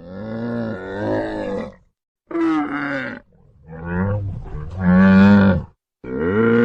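A string of separate deep animal calls, each with a clear pitch, cut together with abrupt silences between them. A new steady call starts near the end.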